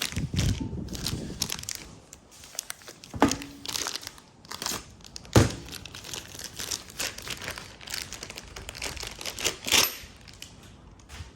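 Plastic packaging crinkling and tearing as new gas bonnet struts are unwrapped and handled. Two sharper knocks come about three and five seconds in.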